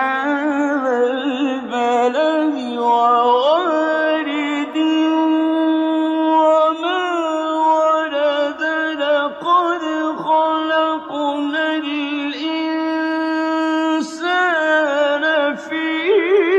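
Solo male voice reciting the Quran in the drawn-out melodic mujawwad style: long held notes broken by quick ornamental runs, with a few short pauses for breath in the middle.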